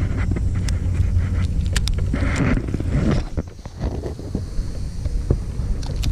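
Wind rumbling on the microphone, with scattered clicks and knocks from handling around the boat.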